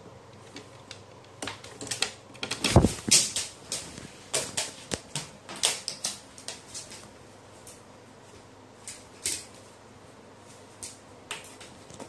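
A crow's beak pecking and its claws clicking on hard surfaces: an irregular run of sharp taps, thickest from about one and a half to seven seconds in, with one heavier thump about three seconds in and a few scattered taps near the end.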